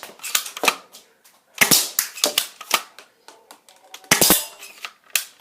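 A toy BB gun firing in quick bursts of sharp snapping shots, several shots per burst, with a gap of a second or more between bursts.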